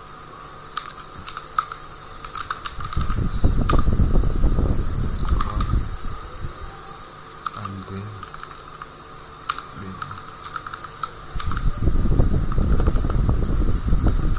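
Typing on a computer keyboard: irregular key clicks, with two louder stretches of fast, heavy low thumping, about three seconds in and again near the end. A steady thin whine runs underneath.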